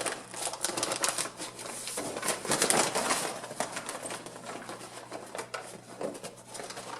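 Rapid, irregular crackling and rustling of the rump roast's plastic wrapping as it is handled.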